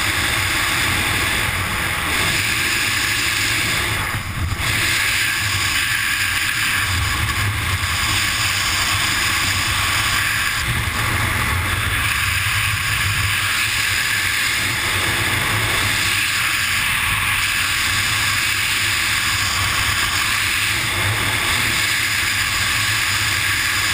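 Steady, loud rush of freefall wind buffeting a helmet camera's microphone during a wingsuit flight, dipping briefly about four seconds in.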